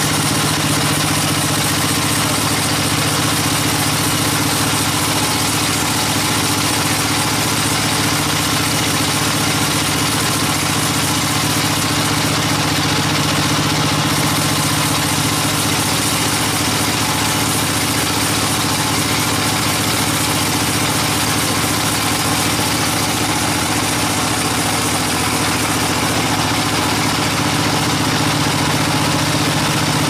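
Band sawmill running steadily while sawing a teak log: a constant machine drone with a low, even hum that does not change.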